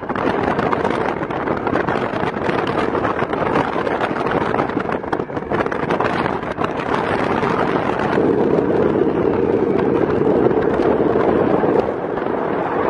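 Wind buffeting the microphone: a loud, steady rushing noise that swells for a few seconds from about eight seconds in.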